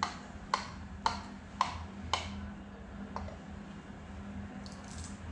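Sharp clicks from someone operating a laptop: five about half a second apart, then one more about a second later, over a low steady hum.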